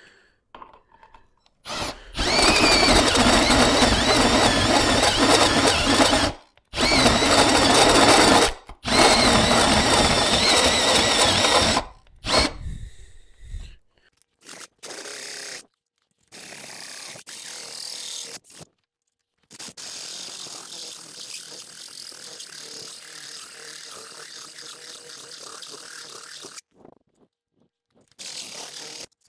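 A 12-volt cordless hand drill in its slow gear drives a one-piece carbide hole saw into quarter-inch steel plate. It cuts in three loud runs of a few seconds each, with a wavering whine over the grinding of the teeth, then in longer, much quieter runs.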